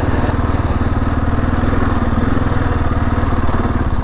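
2022 Kawasaki KLR 650's single-cylinder four-stroke engine running steadily at low speed as the bike is ridden slowly.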